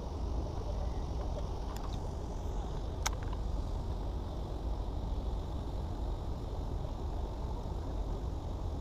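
Steady low outdoor rumble with one sharp click about three seconds in.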